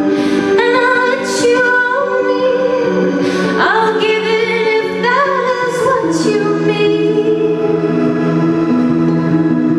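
A woman singing a slow song to her own acoustic guitar accompaniment in a live set, her voice wavering through a phrase with vibrato before settling into longer held notes in the second half.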